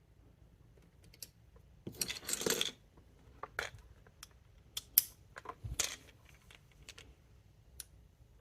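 Screws and plastic parts of a vacuum cleaner head being handled: scattered light clicks, a short rattling scrape about two seconds in, a sharp click about halfway, and another short scrape just after it.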